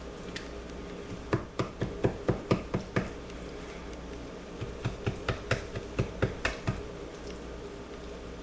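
A knife stabbing repeatedly into raw chicken pieces, giving sharp taps in two quick runs of about four to five a second.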